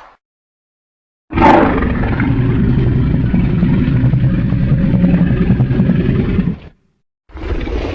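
Designed monster roar for a fire-breathing T. rex kaiju: after a second of silence it bursts in suddenly and holds as a long, low, rough growl for about five seconds, then cuts off; another roar begins just before the end.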